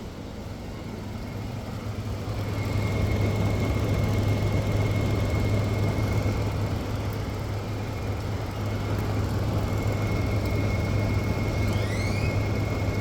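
Older LG 8,000 BTU window air conditioner cycling back on from energy-saving mode: the compressor and fan start up about two seconds in and build to a steady low hum, with a thin high whine over it.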